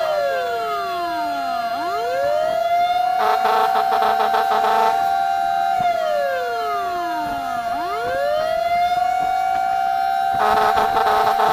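Fire truck siren wailing: the tone holds high, slides slowly down, then swoops back up, twice, over a second steady siren tone. Twice a rapidly pulsing horn-like tone breaks in for a second or two, about three seconds in and near the end.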